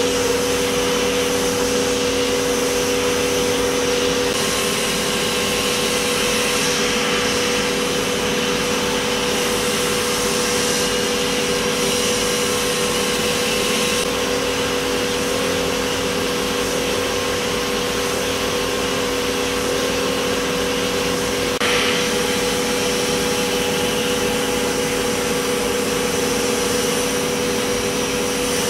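CNC machining centre spindle running a small end mill through a finishing cut, heard as a steady whine with a few held tones under an even hiss from the nozzle.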